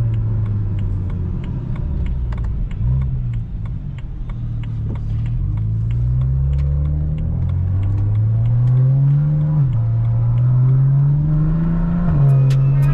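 BMW 335is twin-turbo inline-six accelerating, its pitch climbing steadily and dropping back at gear changes about two thirds in and near the end.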